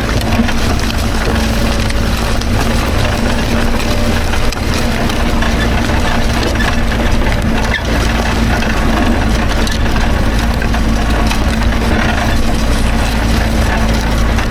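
Tractor engine running steadily under load, a constant low rumble with a steady hum.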